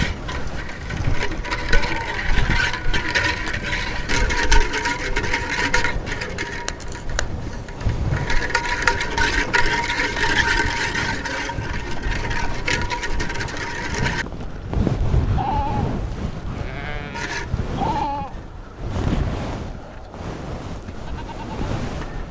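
Goats bleating several times, with a steady high-pitched buzz in the background that cuts off suddenly about two-thirds of the way through.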